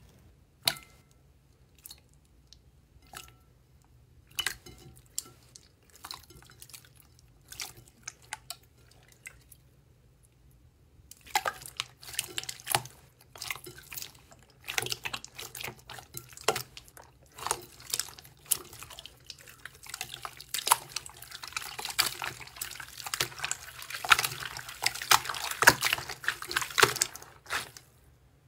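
Clear slime being poked and then pressed and squished by hand, making wet clicks and small pops. The clicks are sparse at first, then become dense and continuous after about ten seconds.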